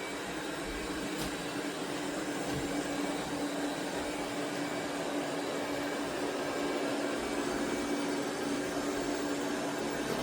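eufy RoboVac 11S Max robot vacuum running: a steady suction whir with a constant hum, fairly quiet.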